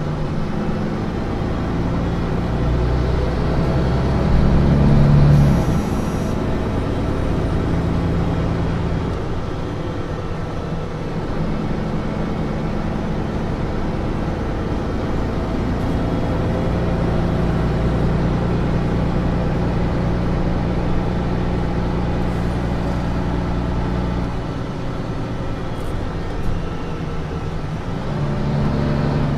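Mercedes-Benz Citaro C2 city bus engine pulling under load. Its drone builds for about five seconds and then drops away abruptly, as at a gear change. It then runs on steadily through long stretches of driving, eases to a quieter hum near the end, and picks up again.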